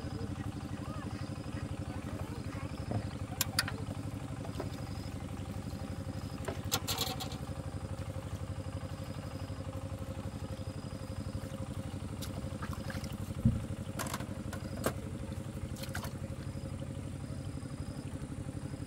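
A walk-behind tractor's small single-cylinder engine idling steadily, with a few sharp metallic clinks of tools on the engine, the loudest about two-thirds of the way through.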